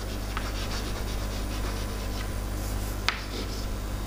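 Chalk scratching on a chalkboard as a word is written by hand, with a sharper tap about three seconds in.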